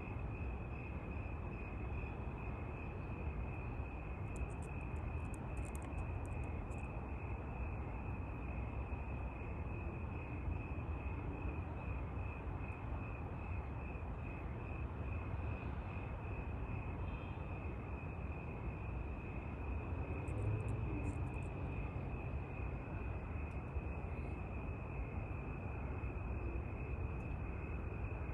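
Crickets chirping in a steady pulsing trill, several pulses a second, over a steady low rumble.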